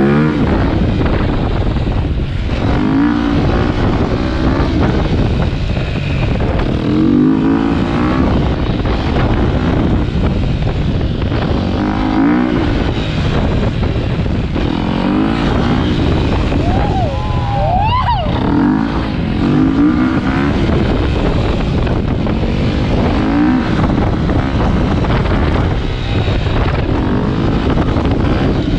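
Dirt bike engine revving while riding, its note climbing in pitch and dropping back every few seconds as it accelerates and shifts, over heavy wind rush on the microphone. About two-thirds of the way through, a higher engine note briefly rises and falls.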